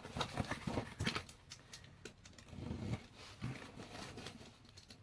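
Cardboard Funko Pop box and its packaging being handled and opened: a run of small irregular clicks and rustles.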